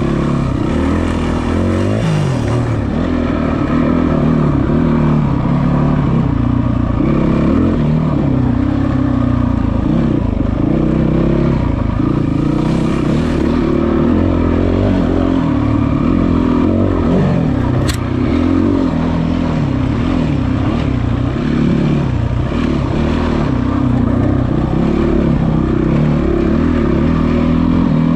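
Yamaha WR450F's single-cylinder four-stroke engine under way off-road, its revs rising and falling constantly with the throttle. A single sharp click about two-thirds of the way through.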